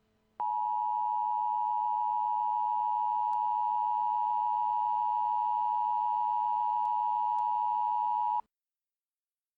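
Emergency Alert System attention tone: one loud, steady high tone that starts about half a second in, holds for about eight seconds and cuts off suddenly, signalling that a weather warning broadcast is about to follow.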